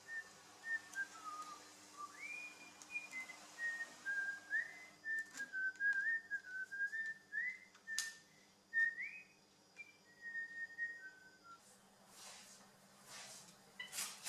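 A person whistling a slow tune, clear single notes with short glides between them, stopping about eleven and a half seconds in. A sharp click comes about eight seconds in, and a few knocks follow near the end, the loudest right at the end.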